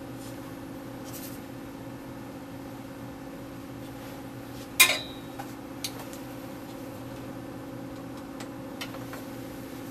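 Steady hum of a running Intoxilyzer 5000 breath-alcohol instrument, with one sharp click about halfway through and a few lighter clicks after it as the date-setting DIP switches on the side of the instrument are worked.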